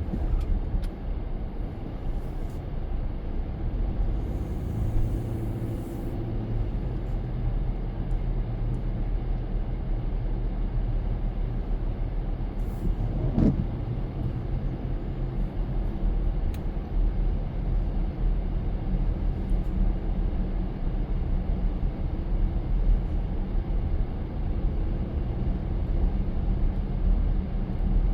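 A car driving in the rain: a steady low rumble of engine and tyres on wet road. A short pitched sound cuts through once, about halfway through.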